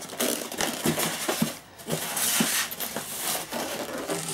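Packaging being handled: a polystyrene foam insert pulled out of a cardboard box, rubbing and rustling against the cardboard and plastic wrap, with a few light knocks.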